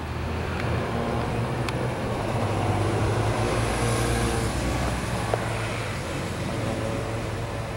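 Low, steady engine rumble that swells around the middle and eases off again toward the end.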